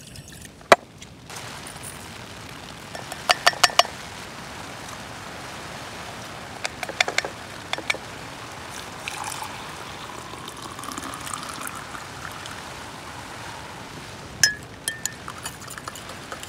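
Water poured into a saucepan, then hot water poured into a ceramic coffee mug, its pitch rising as the mug fills. Sharp clicks and knocks of utensils, and near the end a spoon clinking against the mug as the coffee is stirred.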